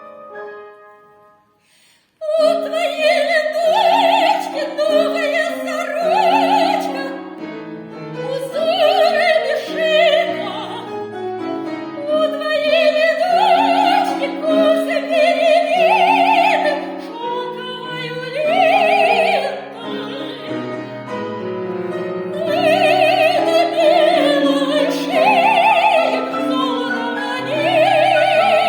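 Soprano voice singing an operatic aria with piano accompaniment, the long high notes sung with wide vibrato. After a short pause about two seconds in, voice and piano come back in together.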